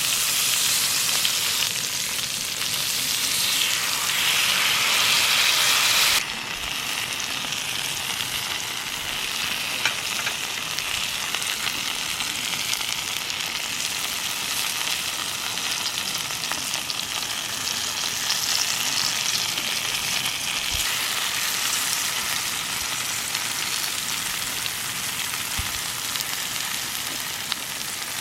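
Pork neck frying in a hot pan, sizzling steadily; the sizzle is louder at first and drops suddenly about six seconds in, then carries on more evenly.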